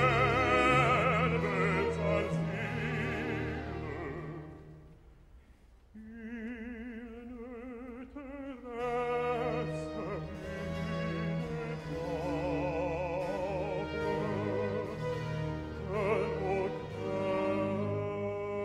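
Baroque opera: orchestra and voice, thinning to a brief hush about five seconds in. A solo voice with a wide vibrato then sings almost unaccompanied, and the orchestra's low strings come back in under a bass-baritone singing.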